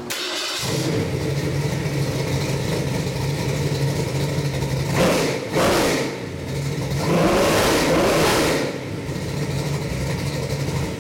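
Ford 347 small-block V8 crate engine (built on a 302 block, Holley-carbureted) running on an engine test stand: idling steadily, blipped twice quickly about five seconds in, then revved and held for about a second and a half before settling back to idle.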